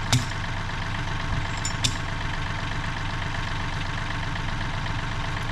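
Farm tractor's diesel engine idling steadily while it lifts a log, with two sharp knocks, one just after the start and one a little under two seconds in.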